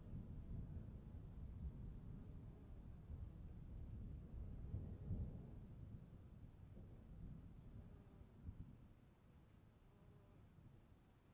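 Faint low rumble of distant thunder, swelling about five seconds in and dying away, over a steady high pulsing chirr of insects.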